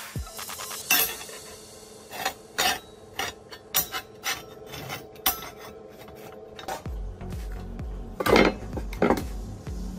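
Steel strips and a steel plate being handled: a series of short metallic clinks and knocks, with louder scrapes near the end as the plate is lifted and shifted. A low steady rumble comes in about seven seconds in.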